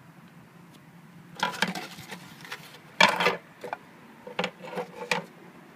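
Stiff carbon-fibre frame pieces clattering and knocking against each other and a plastic kitchen scale as they are set down and shifted, a string of sharp knocks with the loudest about halfway through.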